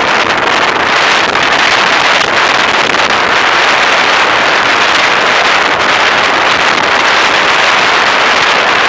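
Steady rush of wind over the microphone of a camera mounted on a moving bicycle.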